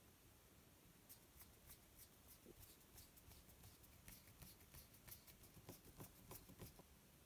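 Faint, irregular clicking and rustling of small plastic RC axle parts being handled, and a small screwdriver turning a screw into the axle housing. The clicks come thickest in the second half.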